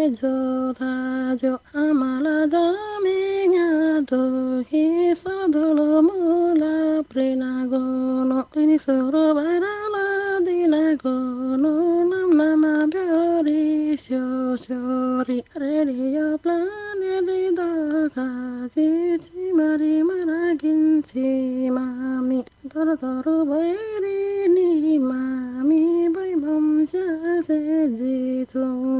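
A woman singing a slow melody, holding each note and letting it waver and bend before the next phrase.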